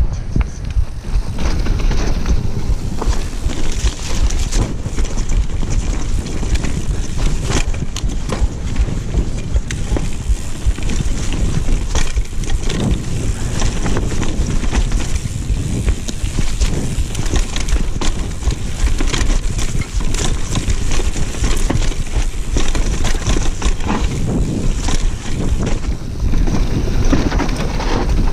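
Mountain bike riding fast down a dirt forest trail: wind rumbling on the microphone over the tyres on the dirt, with frequent clicks and rattles from the bike over stones and bumps.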